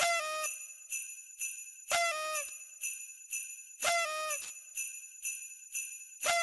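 Jingle bells shaken in a steady rhythm, about two shakes a second, with a louder ringing accent roughly every two seconds.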